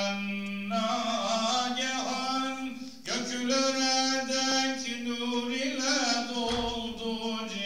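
A hafız's solo male voice chanting unaccompanied in the mevlid style, holding long notes ornamented with melismatic turns. He breaks off briefly twice, about three seconds in and again near the end.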